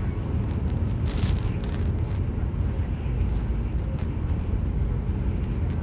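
Passenger ferry under way: a steady low engine rumble with a fainter hiss above it.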